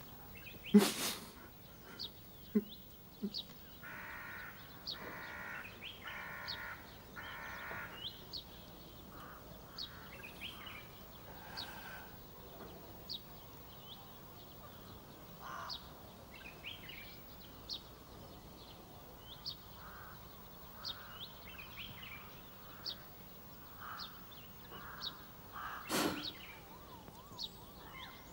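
Crows cawing, four calls in a row in the first third and fainter ones later, over small birds chirping in short high notes. A sharp knock about a second in and another near the end stand out above the bird calls.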